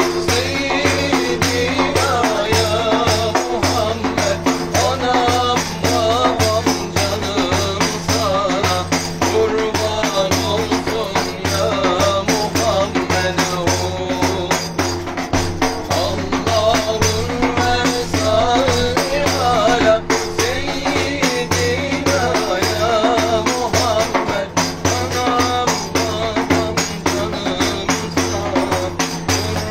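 Men singing a Turkish ilahi (devotional hymn) in unison, the lead voice into a handheld microphone. A large hand-played frame drum keeps a steady beat under the singing.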